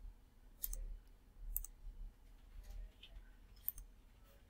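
Three computer mouse clicks, the first two about a second apart and the third about two seconds later, over a faint low hum.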